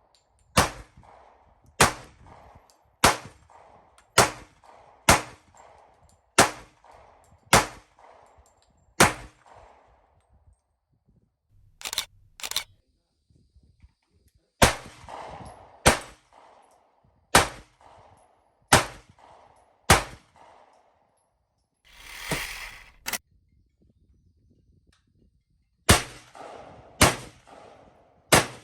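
Gunshots fired one at a time at a steady pace of about one a second, in strings of several shots with pauses between strings, each shot followed by a short echo. A short rushing noise comes just before a lone shot about two-thirds of the way in.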